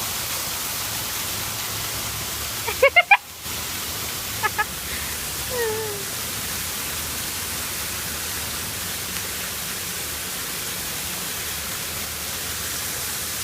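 Waterfall: a steady rush of falling water. A few short, high-pitched calls cut through it about three seconds in and again near four and a half seconds.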